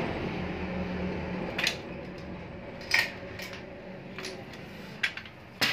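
Metal clinks and taps from a hand tool working on a bicycle's steel bracket and fittings: about six sharp, separate knocks, the loudest about three seconds in and at the end, over a low steady hum in the first second and a half.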